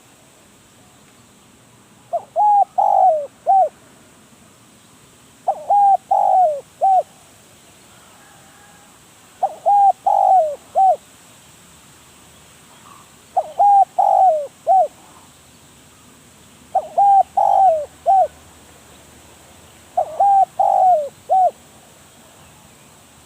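Spotted dove cooing its song: six phrases of three or four notes each, one about every three and a half seconds.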